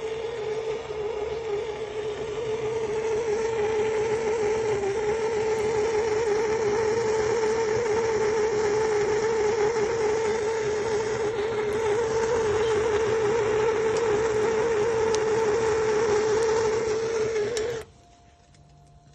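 Gas blowtorch flame burning steadily while heating a copper pipe joint for soldering: a hiss with a wavering whistling tone, which cuts off abruptly near the end as the torch is shut off.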